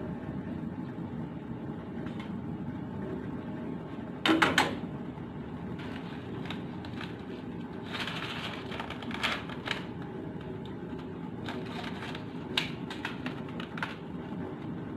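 Steady low rush of a gas stove burner heating a steel pot of water, with a loud metal clatter about four seconds in as a steel ladle goes against the pot. Further softer clicks and rustles follow in the second half as a soup sachet is handled.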